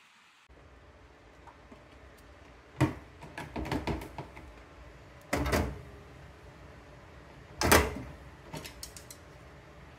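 Kitchen handling clatter: a few sharp knocks and short rattles of a frying pan and utensils being handled on the stovetop, the loudest about three, five and a half and almost eight seconds in, with lighter clicks between.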